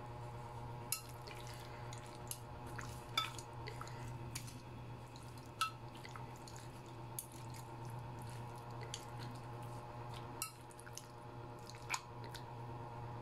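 Metal spoon mixing raw chicken pieces with dry spices in a glass bowl: wet squishing of the meat with scattered sharp clicks of the spoon against the glass. A steady low hum runs underneath.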